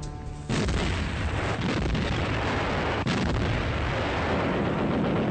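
Battle sound of heavy artillery fire and shell explosions, starting abruptly about half a second in and going on as a dense, steady din, with one sharp crack about three seconds in.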